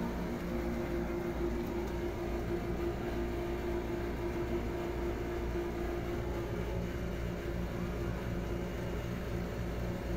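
Steady low machine hum at a constant pitch, with no change.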